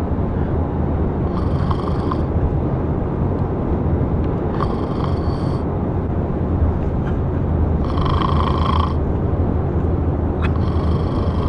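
A motor running steadily with a low, even hum. Four times, about every three seconds, a higher-pitched whine lasting about a second rises over it.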